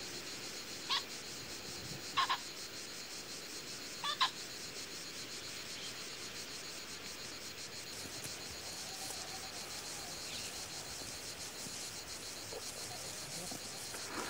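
Short, sharp animal calls, four in the first few seconds, some with a doubled note, over a steady high-pitched insect-like hiss.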